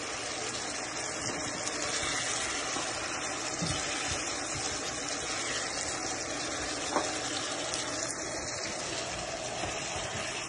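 Chicken karahi gravy simmering and sizzling in a pan, a steady hiss, with a spatula stirring through it and a light knock about seven seconds in.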